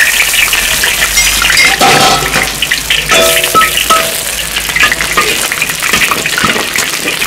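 Chopped ginger sizzling in hot oil in a large iron wok, frying until fragrant, while a metal spatula stirs it and scrapes across the wok with short ringing scrapes.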